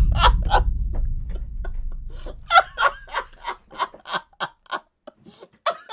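People laughing hard in a long string of short bursts. Underneath at first is a deep low boom that fades away over the first two seconds or so.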